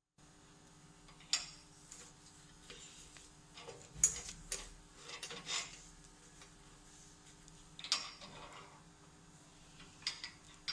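Automatic length-cutting machine with a rotary knife running: a steady low hum, with a sharp click every two to three seconds.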